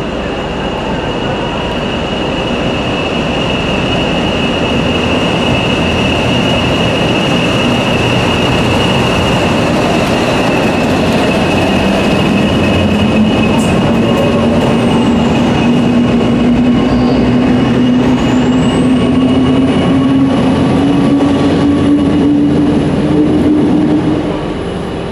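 Two English Electric Class 40 diesel locomotives passing at low speed, their 16-cylinder turbocharged engines running under a steady high whistle. From about halfway a lower engine note climbs slowly in pitch, and a thin high whine rises near the end before the sound eases off.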